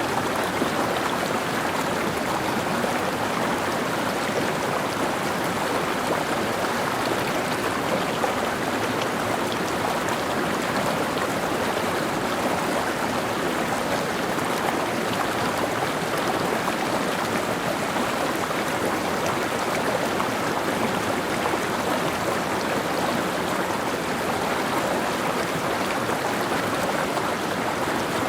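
Mountain stream flowing over rocks: a steady, even rush of water with no breaks.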